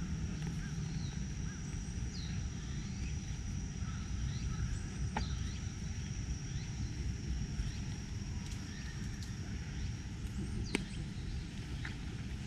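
Outdoor garden ambience: a steady low rumble, a thin high steady tone that fades out about ten seconds in, and a few faint bird chirps. A sharp click comes about five seconds in and a louder one near the end.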